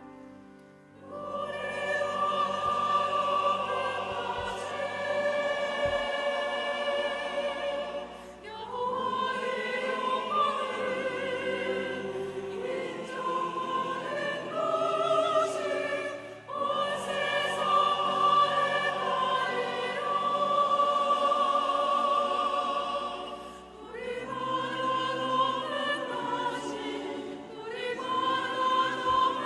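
Church choir singing a sacred anthem in sustained harmony, in phrases of about eight seconds with short breaths between them, over a soft low accompaniment.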